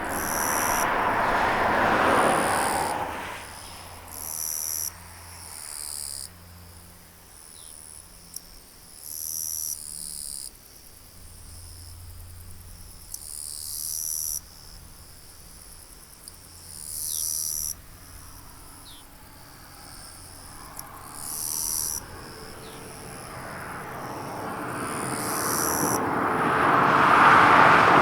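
Insects calling in repeated high, buzzy phrases about a second long, a few seconds apart. A broad rushing noise swells and fades near the start and builds again to its loudest near the end.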